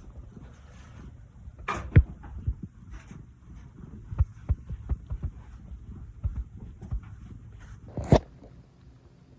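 Irregular soft low thumps of kitchen work, with two sharper knocks, about two seconds in and near the end.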